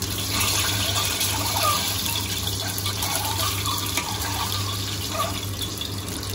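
Whole boiled eggs frying in hot oil in an aluminium pressure cooker, the oil sizzling steadily while a metal spoon turns them, with a few light clicks of the spoon against the pan. A steady low hum runs underneath.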